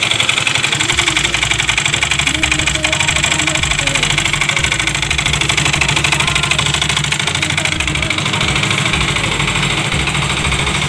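Yamaha Mio GT scooter's single-cylinder engine running at idle with its CVT cover removed, with a rough, noisy running sound. The mechanic takes it for a tight, damaged piston after the engine ran out of oil.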